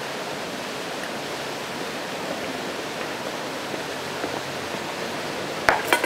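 Steady, even hiss of background noise with no music or voices, broken near the end by two sharp knocks in quick succession.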